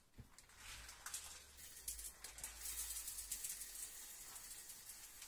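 Dry arborio risotto rice pouring from a cardboard box into a stainless steel food-processor bowl: a faint steady rattling hiss of grains.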